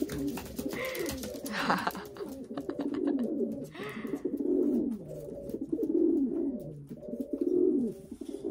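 Male feral pigeon cooing over and over in display, a run of low falling coos about a second each. A few short rustles break in about one and two seconds in and again near four seconds.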